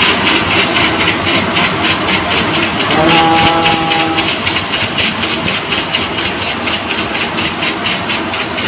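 Gravity-feed paint spray gun spraying silver base coat: a steady loud hiss of compressed air and atomised paint.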